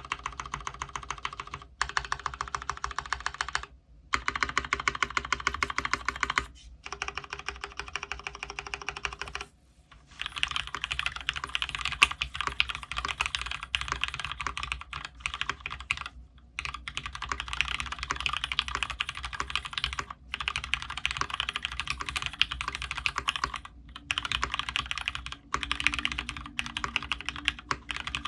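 Fast continuous typing on a custom 65% mechanical keyboard with lubed Cherry Retooled Black linear switches, an aluminium plate and PBT keycaps: a dense run of muted keystroke clacks in bursts of a few seconds, broken by brief pauses.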